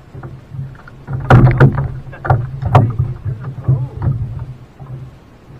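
A hooked bass thrashing at the side of a small fishing boat as it is landed: a loud run of sharp splashes and knocks over about three seconds, over a steady low hum.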